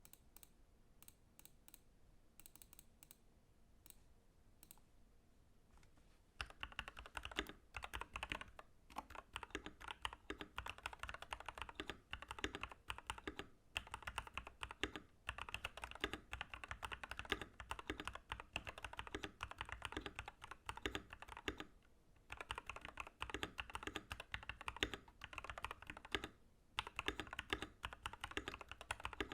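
Typing on an Epomaker TH80 Pro mechanical keyboard with Gateron Yellow Pro 2.0 linear switches, PBT double-shot keycaps and a gasket-mounted steel plate. A few single keystrokes come first, then about six seconds in it turns into fast, continuous typing with brief pauses.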